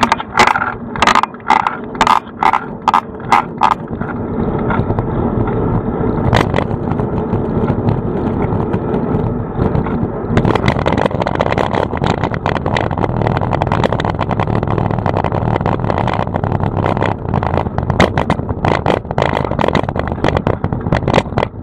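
Ride noise of a bicycle picked up by a camera mounted on the handlebars: steady tyre and road rumble, with a quick run of sharp rattling knocks in the first few seconds and rattling again from about halfway as the bike goes over rougher paving.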